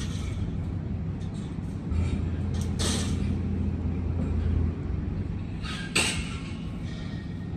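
An engine running steadily with a low hum that grows louder for a couple of seconds near the middle. Three short, sharp noises come over it, at the start, about three seconds in and about six seconds in.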